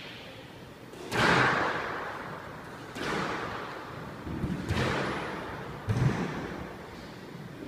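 Squash ball being struck by racquets and hitting the court walls during a rally: four sharp hits a second or two apart, each echoing and dying away in the enclosed court, the first, about a second in, the loudest.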